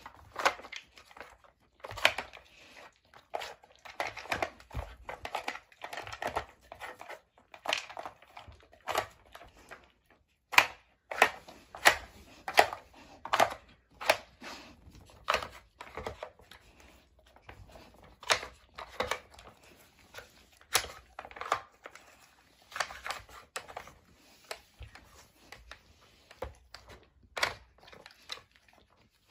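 German Shepherd puppy working a hard plastic dog treat-puzzle toy with her nose: irregular clicks, knocks and scraping as its sliding tiles, knobs and disc are pushed about, with sniffing in between.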